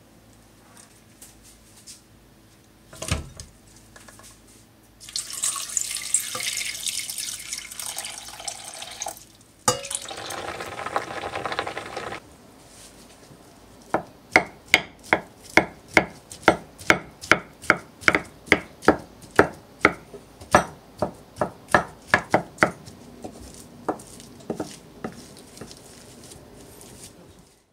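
Wooden spatula mashing boiled potato slices on a ceramic plate, knocking against the plate in a quick series of sharp taps, about two a second. Before that, water runs for several seconds.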